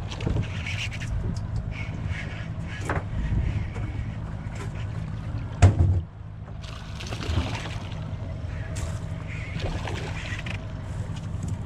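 Motorboat engine running steadily at low revs, with water splashing and scattered knocks on board. A loud thud comes about halfway through.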